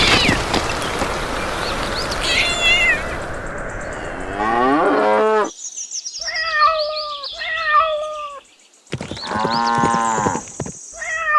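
A rushing noise for the first few seconds, then a string of farm animal calls: a short falling cry, four short high-pitched calls, and one longer, lower moo near the end.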